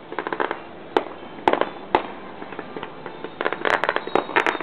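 Fireworks crackling and banging: a patter of crackles, then three sharp bangs about half a second apart, then a dense flurry of crackling pops near the end.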